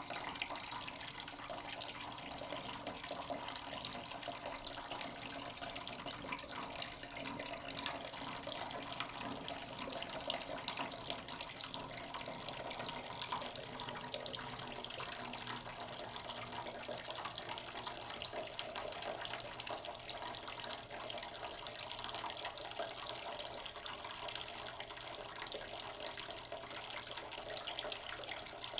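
Water moving steadily, an even hiss flecked with many small splashes.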